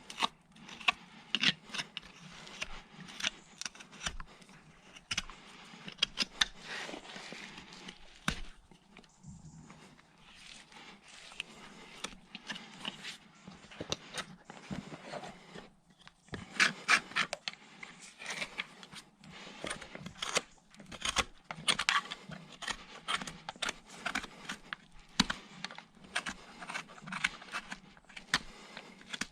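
Hand tool scraping and paring at a horse's hoof in many short, irregular strokes.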